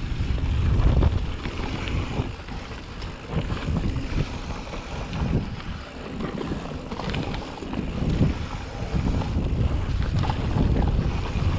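Wind buffeting the microphone: a gusty low rumble that swells and eases every second or two, with a hiss of moving air above it.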